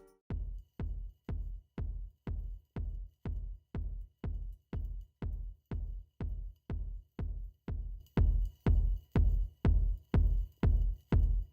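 Electronic background music: a steady drum-machine kick beat about two thumps a second, which gets louder with higher percussion added about eight seconds in.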